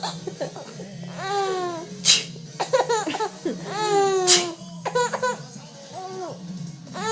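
A young child laughing in bursts of high, falling voice, with two short sharp sneezes about two seconds apart.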